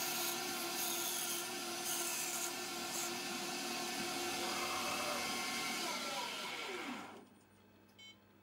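Hercus PC200 small CNC lathe running, its parting tool pecking into an acetal roller with short hissing cuts in the first three seconds. From about four and a half seconds in, the spindle whine falls in pitch as the spindle runs down, and it stops about seven seconds in.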